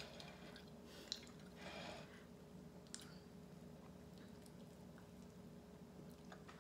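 Near silence: room tone with a faint steady hum and a few faint, brief clicks of a metal fork against a plate as baked potato is scooped up.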